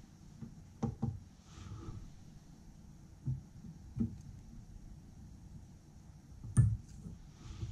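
Small clicks and knocks from hands fitting test media into the clamp of a BESS edge sharpness tester, a handful of separate taps with the loudest knock near the end.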